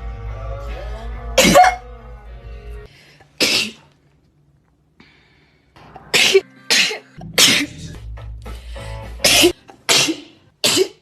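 A run of about eight short, sharp sneezes, single or in quick pairs, as in a sneezing fit. A pop song with a steady beat plays underneath during the first three seconds and again near the middle.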